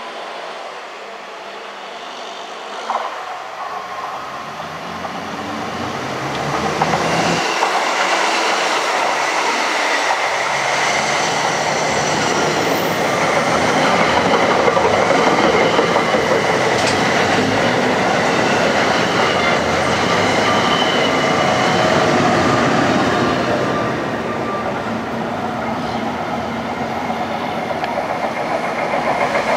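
NJ Transit passenger train of bilevel coaches passing at speed: a rushing rumble of steel wheels on rail with some clickety-clack, building up over the first few seconds and loudest through the middle. Near the end it eases slightly and swells again as a second train approaches.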